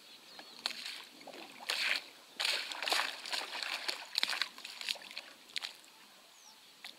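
Water sloshing and splashing against the hull of a small flat-bottomed boat in irregular bursts, dying down near the end; no outboard motor running.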